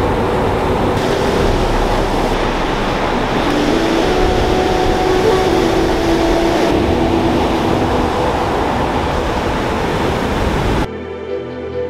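Ocean surf breaking on a sandy beach: a loud, steady rush of noise. Near the end it cuts off abruptly and background music takes over.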